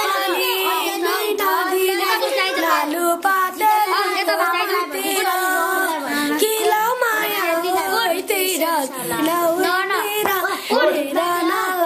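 A group of children singing a song together, several voices overlapping in sustained notes.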